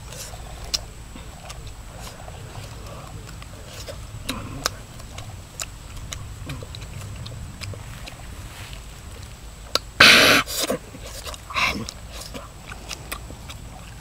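Mouth sounds of eating roasted meat off the bone: scattered clicks and smacks of chewing and tearing. About ten seconds in comes a loud, sudden noise lasting about half a second, then a shorter one a second later.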